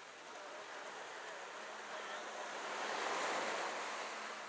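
Rushing noise of wind and choppy water, swelling to its loudest about three seconds in and then easing off.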